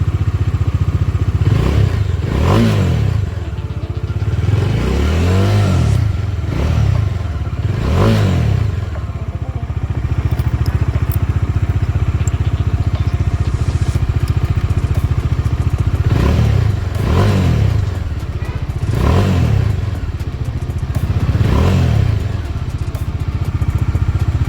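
Bajaj Dominar 400's single-cylinder engine idling, revved in a series of short throttle blips that rise and fall back to idle. The blips come in a cluster in the first nine seconds and again from about sixteen seconds on, with a steady idle between.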